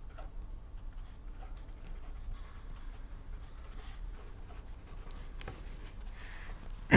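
Faint scratching and light tapping of a pen writing, over a low steady hum.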